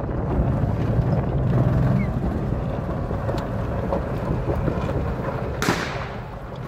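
Small vehicle running steadily during a ride, with wind buffeting the microphone. A brief rush of noise comes near the end.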